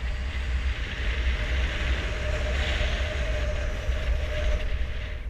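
Air rushing over a helmet-mounted camera's microphone during a parachute descent under an open canopy: a steady rush with a heavy low buffeting rumble and a faint steady whistle.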